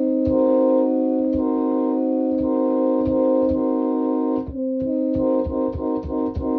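Nathan Airchime K5HL five-chime train horn notes edited together to play a pop melody. A low chord holds throughout while the upper chimes switch on and off in a quick rhythm, with a short click at each note change. The upper notes drop out briefly about two-thirds of the way through.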